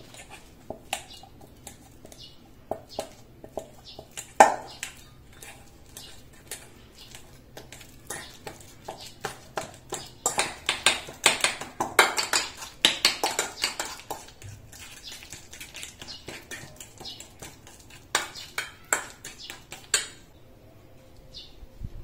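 A metal fork tapping and scraping against a stainless steel bowl while mashing bananas, in uneven runs of quick clinks. One sharp ringing clink comes about four seconds in, and the taps are busiest through the middle.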